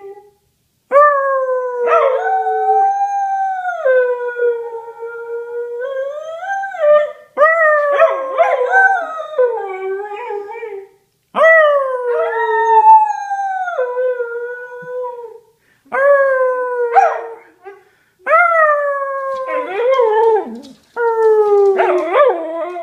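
A whippet howling: about six long howls, each leaping up at the start and then sliding down in pitch. Several break off suddenly mid-howl, and the last few are shorter and more broken.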